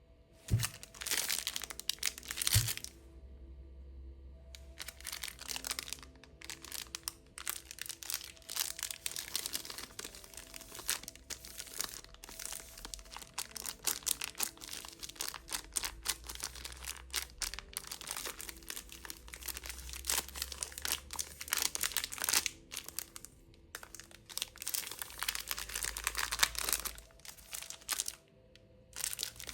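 Plastic candy wrappers crinkling and tearing as lollipops are unwrapped close to the microphone, in dense crackly runs with a short pause about four seconds in and a few brief breaks later.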